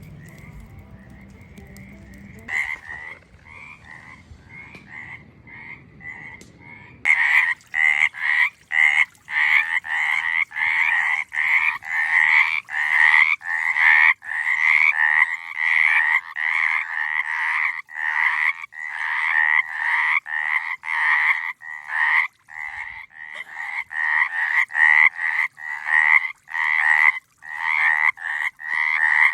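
Frogs calling in a chorus: repeated short, rasping croaks, roughly one or two a second. The calls start faintly a few seconds in and become loud and close about seven seconds in.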